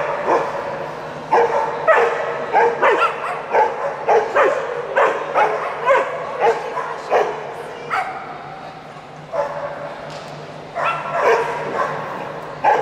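Ibizan hound play-barking in short, high yips, about two a second. The yips stop for a couple of seconds after the middle and start again near the end.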